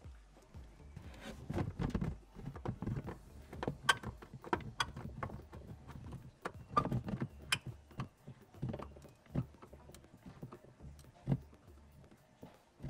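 Irregular clicks and knocks of hands and tools working on a plastic fog light housing and its mounting screws under a car's front bumper, with a few louder knocks.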